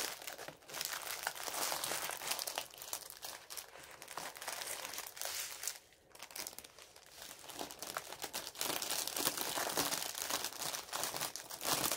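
Small plastic bags of diamond-painting drills crinkling and rustling as they are handled and packed back into a larger plastic bag, in irregular bursts with a short lull about halfway through.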